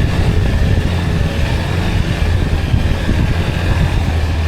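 Steady road and engine rumble of a car driving along, heard from inside.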